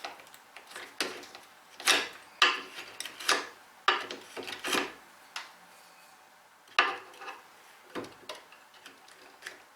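Irregular light wooden knocks and short scrapes, about a dozen, as a mortise chisel and a small block of hardwood are handled and set against a soft pine workpiece.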